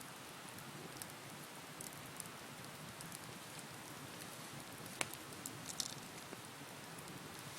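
Wood bonfire burning with a steady soft hiss and scattered sharp crackles and pops, the loudest pop about five seconds in.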